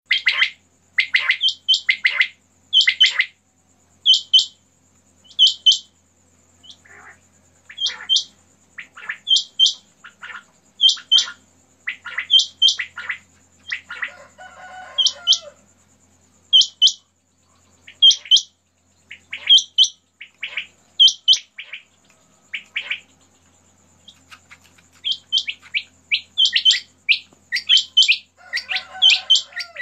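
Several caged quails (batair) calling over and over: short, sharp, high whistled notes in quick pairs and triplets, often overlapping one another, with a faint steady high whine behind them.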